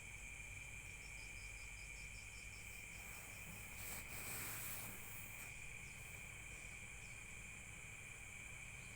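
Faint, steady chorus of insects such as crickets, with a high, even drone and a brief fast chirping trill about a second in; a soft rustling hiss swells and fades in the middle.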